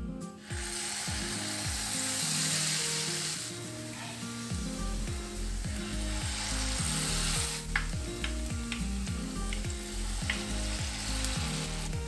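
Batter-coated banana pieces sizzling as they are dropped into hot coconut oil and deep-fry in a frying pan. The sizzle swells about half a second in and again about halfway through, with a few sharp spits of oil in the second half.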